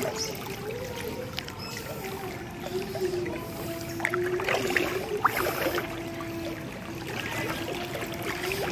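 Floodwater sloshing and splashing around the moving recorder, under a steady motor drone whose pitch wavers slightly up and down. A few short splashes come about halfway through.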